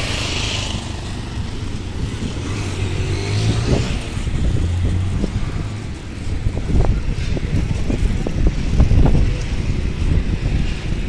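Road traffic: a steady low vehicle rumble, with a run of irregular low thumps in the second half.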